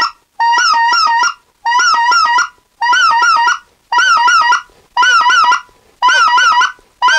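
Short-reed goose call blown to imitate white-fronted geese: six quick bursts of three clipped honking notes each, about one burst a second. Each note is started with a hard tongue-and-breath strike, the attack technique of dropping and raising the air pressure fast.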